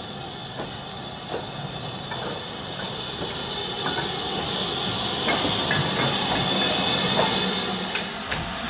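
OO gauge model BR Standard 2MT steam locomotive and wagons running past: a steady hiss that swells in the middle and fades near the end, with scattered irregular clicks from the wheels on the track.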